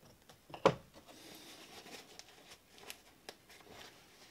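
Small-parts handling while polishing a Glock trigger part: one sharp knock about two-thirds of a second in as the wooden block and polish swab are set down, then soft cloth rustling with small clicks as a rag wipes excess polish off the part.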